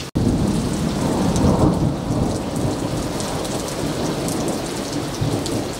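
Thunder rumbling over heavy rain, the rumble strongest in the first two seconds and then easing into a steady downpour hiss.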